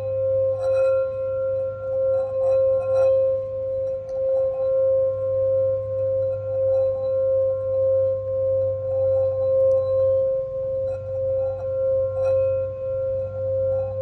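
Crystal singing bowl rubbed around its rim with a wand, holding one steady tone near 528 Hz with fainter higher overtones. The level swells and dips about once a second as the wand circles.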